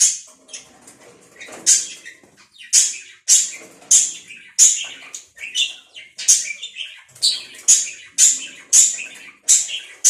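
Budgerigars chirping: a run of short, sharp, high chirps about two a second.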